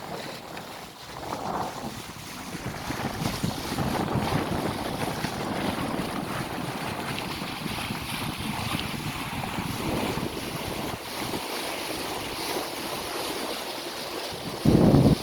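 Wind and water rushing past a sailing yacht under sail, with wind buffeting the microphone. A short, loud low buffet comes near the end.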